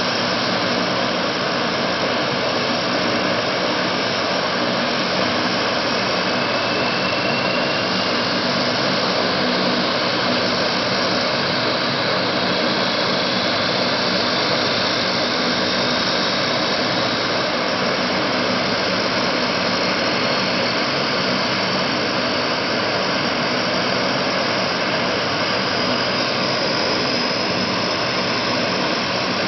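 Lockheed C-130 Hercules with all four Allison T56 turboprop engines running steadily on the ground, propellers turning. A steady heavy drone with a faint high whine that rises slowly in pitch.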